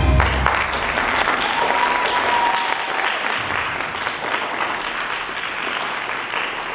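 Audience applauding, slowly dying down, with the last low chord of the music fading out at the very start.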